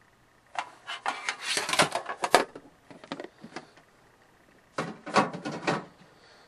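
Handling noise of objects on a table: clicks, taps and rubbing in two spells, a longer one starting about half a second in and a shorter one near five seconds.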